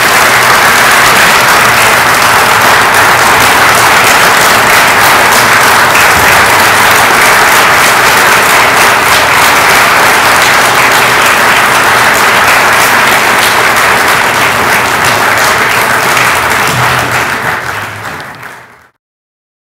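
A hall full of people applauding: loud, steady clapping that fades near the end, then cuts to silence.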